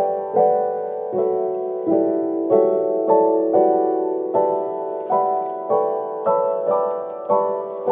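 Background piano music: a gentle melody of struck notes that ring and fade, a little under two a second.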